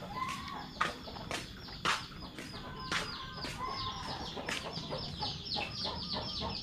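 Free-range village chickens clucking, with a continuous run of quick, high, falling chirps and a few sharp clicks.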